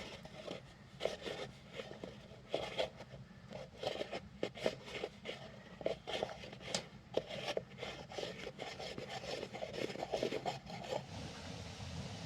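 Irregular scraping and rubbing strokes, several a second, over a steady low hum; the strokes stop about eleven seconds in.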